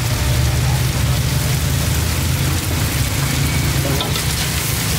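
Steady sizzle of food frying in hot oil, with a low steady rumble underneath.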